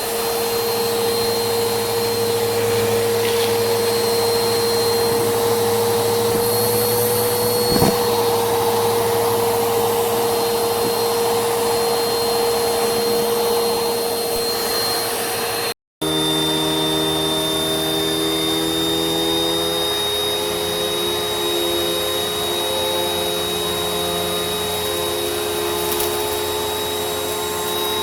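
Vacuum cleaner motor running with a steady whine. About halfway through, it cuts out for an instant and comes back with a slightly different set of tones.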